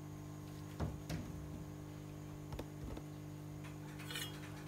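Quiet steady low hum with a few faint ticks and clicks, and a brief high chirp near the end.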